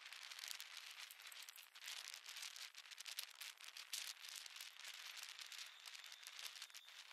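Faint crackling hiss of wind rushing over the microphone of a camera carried at speed on an electric unicycle, with many small crackles and no deep rumble.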